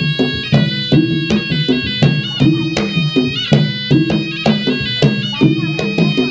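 Traditional Malay silat music: a shrill reed pipe, the serunai, plays a wavering melody over steady gendang drum strikes, about three a second.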